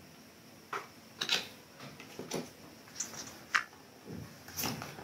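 Pokémon trading cards being handled and slid through the hands, giving a handful of short, irregular clicks and flicks.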